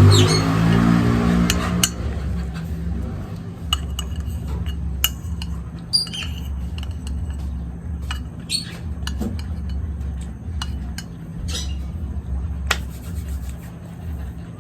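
Light clinks of a spoon against a plate now and then during eating, over a steady low hum, with a few short high chirps.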